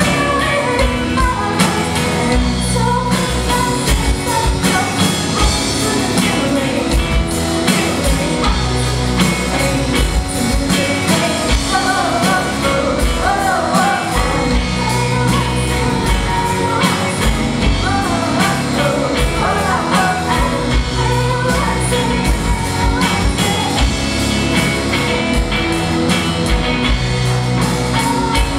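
Live rock band playing: singing over guitars and a drum kit.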